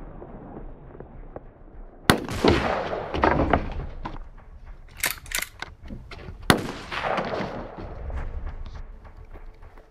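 Gunshots: a single shot about two seconds in, a quick burst of several around five seconds, and another single shot at about six and a half seconds, each with an echoing tail.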